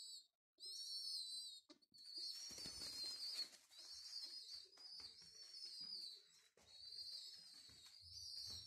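Baby homing pigeons (squabs) giving high, wavering, squeaky begging calls almost without a break, the sound of chicks begging for food while being hand-fed. A brief rustle of flapping wings about three seconds in.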